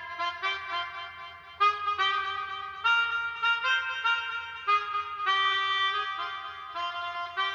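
Free-reed wind instrument playing a slow melody of held notes, changing about every half second to a second, sometimes with two notes sounding together.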